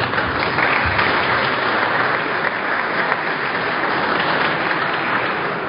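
Audience clapping: a burst of applause that starts abruptly and holds steady, then tails off near the end.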